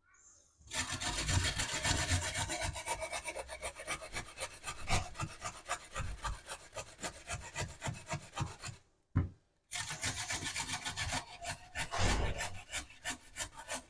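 A carrot being grated on a metal box grater: a quick run of rasping strokes that stops for about a second two-thirds of the way through, then starts again.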